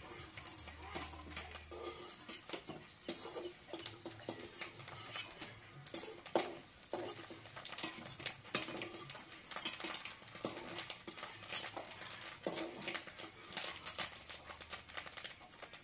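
Irregular light clicks, taps and clinks of kitchen utensils and cookware during cooking.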